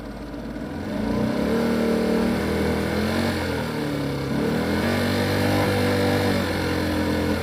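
Motor vehicle engine sound effect, running and revving: it grows louder about a second in, dips and rises in pitch a couple of times, then cuts off suddenly at the end.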